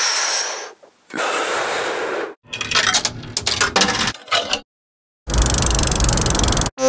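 Slot machine sound effects: a coin scraping into the slot and clattering down inside, a brief silence, then a loud, fast, even whirring rattle of the reels spinning that cuts off abruptly.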